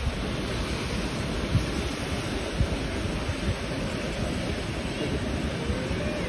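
Wind rushing and buffeting against the microphone: a steady rushing noise with an uneven low rumble.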